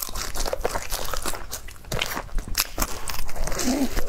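Close-miked biting and chewing of a crisp fried twisted bread roll with a cream filling: many short, irregular crunches of the crust.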